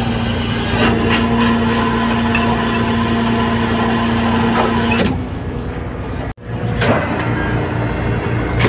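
Fishing boat's engine and deck machinery running with a steady hum, with a few sharp knocks. The sound drops out briefly about six seconds in and then resumes.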